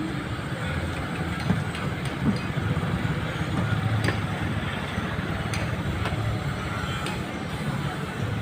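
Diesel engine of a traditional fishing boat running steadily, a low throb with a few faint knocks.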